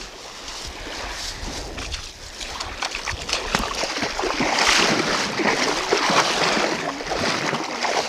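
Shallow Dead Sea water lapping and sloshing close to the microphone, with small irregular splashes and some wind noise. It grows louder toward the middle.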